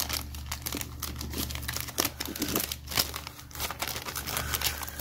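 Clear plastic zip-top bag crinkling and crackling irregularly as it is opened and its contents are handled, over a low steady hum.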